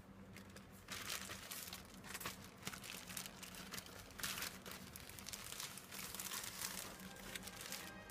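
Thin white plastic shopping bag crinkling and rustling as hands rummage in it and draw out a boxed iPad Air, the rustling starting about a second in and going on in uneven bursts.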